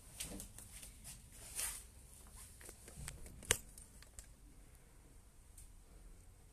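Faint handling noise from a smartphone being picked up and moved: light rubbing and scattered clicks, with one sharper click about three and a half seconds in.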